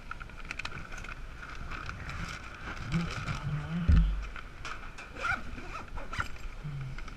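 Paper bag rustling as it is lifted out of an insulated delivery backpack, then the backpack's zipper being pulled shut, with a low thump about four seconds in.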